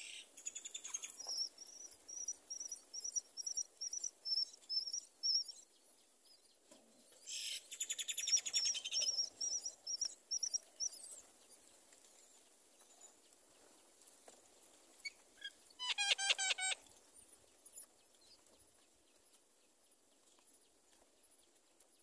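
Common myna nestlings and parent calling at the nest: a run of short high cheeps at about three a second, then a louder rapid chattering burst, and later one short harsh call.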